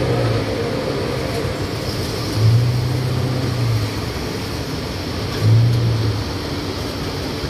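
Open-backed songthaew (pickup-truck shared taxi) on the move, heard from its rear bench: steady engine, road and wind noise. A low hum swells and fades three times.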